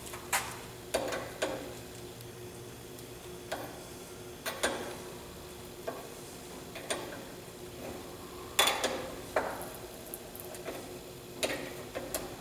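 Irregular metal clicks and clinks of a wrench working the nut of a 6AN hose-end fitting as it is tightened onto a PTFE-lined braided stainless steel hose held in a vise. The taps come a second or two apart, with a louder cluster about two-thirds of the way through.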